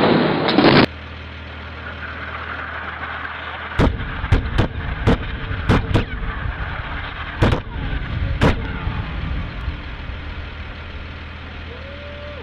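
The last moment of a very loud explosion blast cuts off abruptly. Then, over a steady low hum, a quick series of about eight sharp detonation cracks comes from the big explosion throwing up smoke and dust, between about four and eight and a half seconds in.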